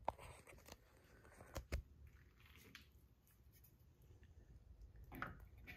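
Near silence broken by a few faint clicks and taps as a plastic headlight bezel is handled and seated against the grille: one sharp click at the start and two more about a second and a half in.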